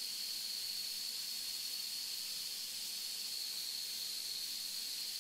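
Steady background hiss with a faint, steady high-pitched whine running through it; nothing else stands out.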